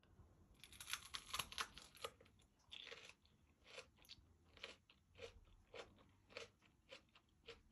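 Someone biting into and chewing a crisp stuffed green chilli kimchi: a cluster of loud crunches about a second in, then steady chewing crunches, about one and a half a second.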